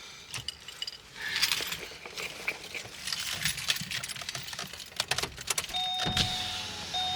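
Car keys jangling and clicking as they are handled inside a car. Near the end a car's warning chime starts, a two-tone ding repeating a little more than once a second.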